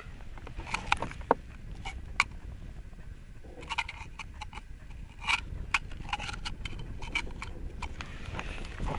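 Irregular sharp clicks and taps from handling a plastic bloodworm bunch-tier, over a steady low rumble.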